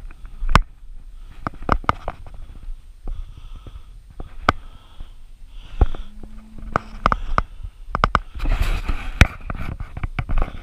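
Footsteps through long grass beside a rabbit net, with sharp clicks and knocks and short rushes of breathy noise close to the microphone.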